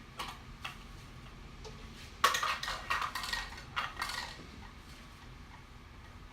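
Two light knocks, then about two seconds of clattering hard objects with a faint ringing, beginning about two seconds in, as when dishes or household items are handled and knocked together.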